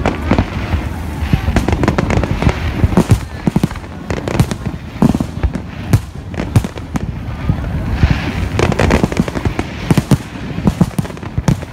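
Aerial firework shells bursting one after another, a dense run of bangs and crackles over a low rumble.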